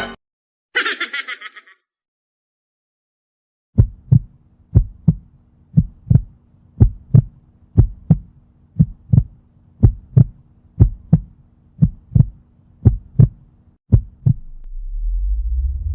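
Heartbeat sound effect: paired low thumps, lub-dub, about once a second over a steady low hum, lasting about ten seconds. A brief rattling burst comes about a second in, and a rising whoosh starts near the end.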